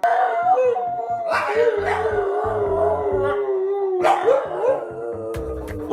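A dog howling in long drawn-out notes that waver and slide slowly down in pitch, with a new howl starting about four seconds in. Music with a steady low beat plays underneath.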